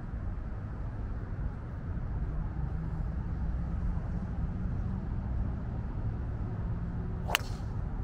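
Golf driver striking a ball off the tee: one sharp, short crack with a brief metallic ring near the end, over a steady low background rumble.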